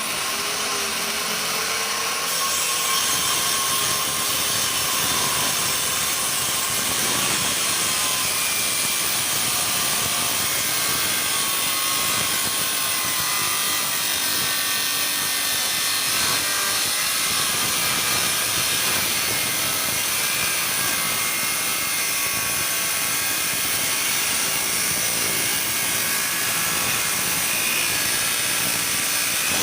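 Electric woodworking power tool running steadily on wood for about half a minute.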